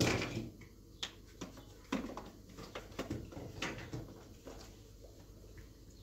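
Irregular light knocks and clatter of objects being handled, loudest at the very start and again about two seconds in.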